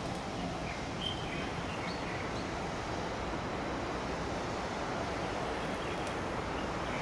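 Steady outdoor background noise with a few faint, short bird chirps about a second in.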